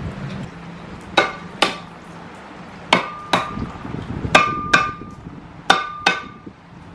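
Hammer blows on metal at a sailboat's propeller during its removal: eight sharp strikes in four pairs, each ringing briefly.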